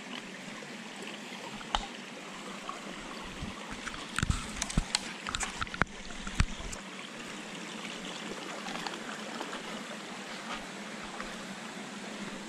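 Shallow mountain creek running over rocks, a steady trickling rush of water. A run of sharp knocks and clicks comes about four to seven seconds in.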